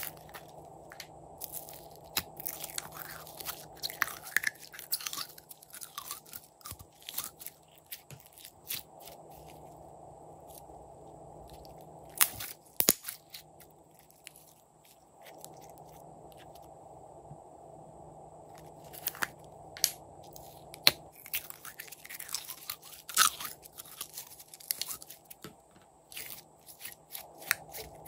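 Glossy gold slime being squeezed, stretched and kneaded by hand, making sticky clicks, pops and crackles. These come in clusters, with quieter stretches between them.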